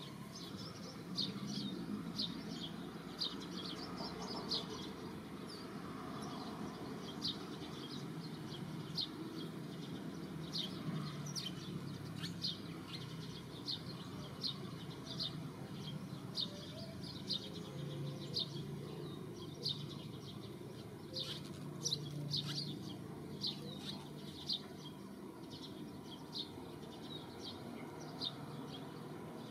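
Small birds chirping: short, high chirps repeating every second or so, over a steady low background noise.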